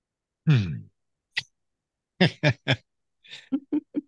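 A person lets out a long audible sigh that falls in pitch, followed by a click and then short bursts of laughter in quick pulses.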